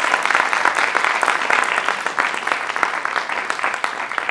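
Audience applauding: dense, steady clapping that slowly tapers off.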